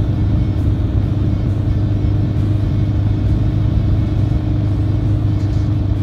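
Four-wheeler (ATV) engine running steadily under way, a constant low rumble with a faint steady hum above it.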